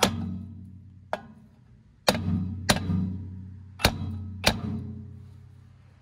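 Small sledgehammer striking the end of a rust-seized HVAC blower shaft six times at uneven intervals, trying to drive it down through the blower wheel hub. Each blow is a sharp metallic clank followed by a low ringing that dies away.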